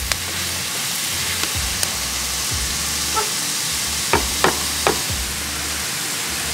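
Sliced mushrooms and onion sizzling steadily in a large pan over a wood fire while being stirred with a wooden spatula, with a few sharp clicks about four to five seconds in.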